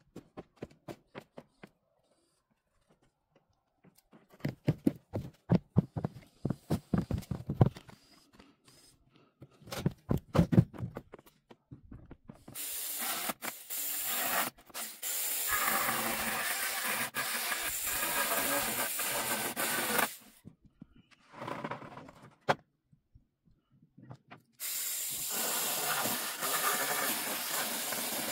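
A handheld power tool runs in two long, steady stretches on a wooden pallet, switched on and off abruptly. It is preceded by a run of quick knocks and clatters.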